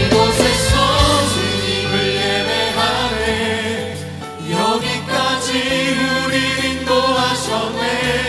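Christian worship music: a group of voices singing over a backing band.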